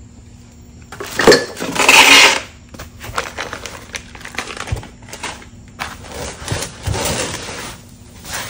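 Metal parts clanking and rattling as they are handled. There is a loud clatter about a second in and another just after two seconds, then a run of lighter clicks and knocks.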